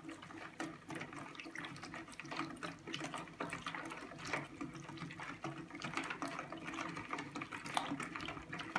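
Hand wire whisk beating a runny yogurt, oil and egg-white batter in a bowl: quick, irregular wet sloshing with ticks of the wires.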